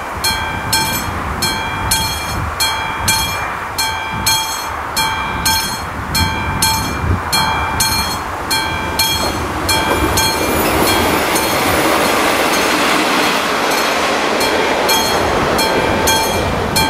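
Mechanical warning bell of an AŽD 71 level-crossing signal ringing steadily at a little under two strokes a second while the red lights flash, warning that a train is coming. About ten seconds in, a rushing noise from something passing swells up for several seconds and partly drowns the bell.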